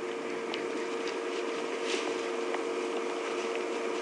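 A few faint, scattered crunches of a nyala chewing a piece of tortoise shell, heard over a steady hiss and a constant low electrical hum.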